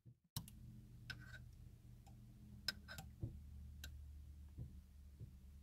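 Faint, irregular light clicks, about eight of them, over a steady low hum.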